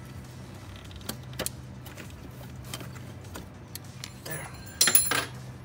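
Hands working a coolant hose onto its plastic quick-connect fitting: scattered light clicks and knocks over a steady low hum, with a louder clatter of clicks near the end.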